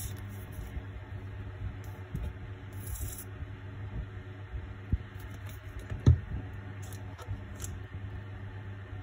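Steady low hum in a small room, with faint scraping and clicking from hands handling a plastic glue bottle and thin plastic fibre-optic strands. There is a short soft knock about six seconds in.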